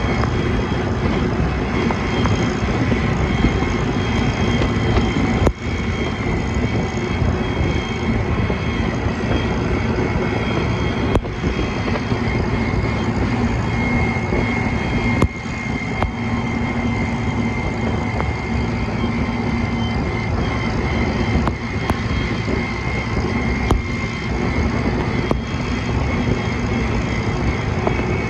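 Case 730 tractor's four-cylinder engine running steadily at working speed, with a few brief clicks along the way.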